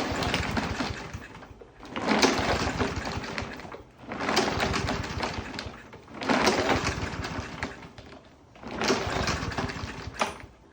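Briggs and Stratton small engine being cranked by its recoil pull-starter five times in a row, each pull a quick burst of rapid engine strokes that fades out as the engine fails to keep running.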